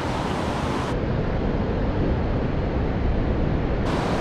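Steady ocean surf and wind noise on the open coast, with wind rumbling on the microphone.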